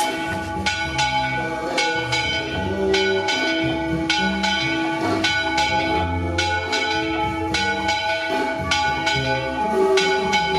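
Several bells ringing together, with frequent overlapping strikes at different pitches and their tones ringing on between strikes.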